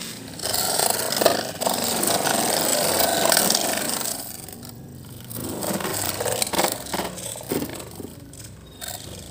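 Irregular scraping and clattering of plastic toy trucks being handled and pushed about, with sharp clicks, loudest in the first four seconds and again in short bursts later.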